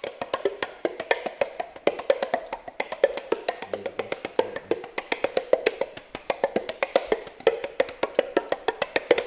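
Background music with a fast, even run of wood-block-like percussive taps, about eight a second.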